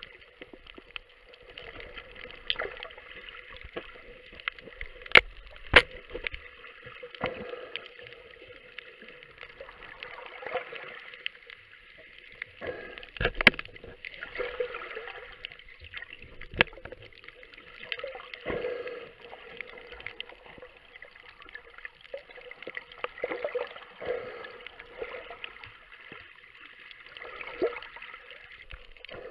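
Muffled water noise with a gurgling swell every four to five seconds and a few sharp clicks.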